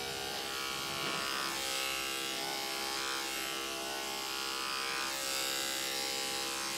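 Electric dog-grooming clippers with a 7 blade, running with a steady hum as they are passed over a dog's coat.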